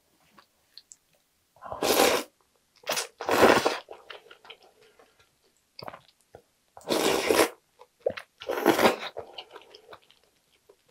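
Close-miked slurping of ramen noodles and soup off a wooden ladle: about five loud slurps, each about half a second long, with quiet chewing and mouth clicks between.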